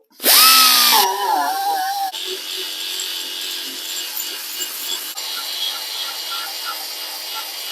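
Handheld power grinder stripping paint and filler from a truck's sheet-metal cab corner to expose the rust. It starts loud with a high whine whose pitch drops about a second in as the disc bites, then runs steadily with a hissing, scraping grind.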